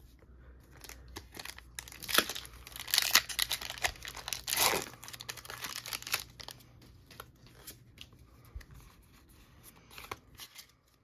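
Foil wrapper of a Pokémon TCG Silver Tempest booster pack being torn open and crinkled, the loudest rips about three and four and a half seconds in, followed by lighter crinkling as the pack is handled.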